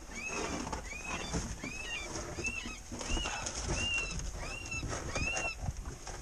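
Predator call playing an animal distress cry: a regular series of high, arching squeals, about three every two seconds, used to lure coyotes.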